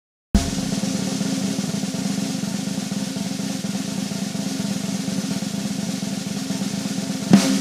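A snare drum roll that starts abruptly and runs steadily, closing with one accented hit near the end that dies away.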